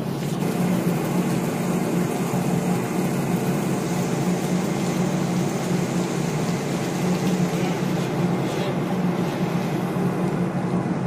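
Steady, unbroken drone of a ship's engine, a constant low hum under an even rushing hiss.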